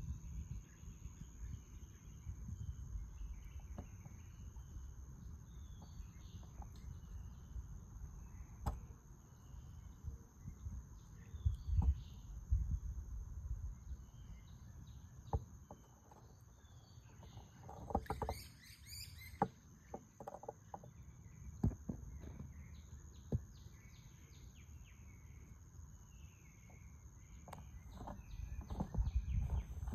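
Pond-edge ambience: a low rumble with water lapping and occasional light knocks, small birds chirping faintly, and a faint steady high whine. A short, rapid pulsed trill sounds about two-thirds of the way through.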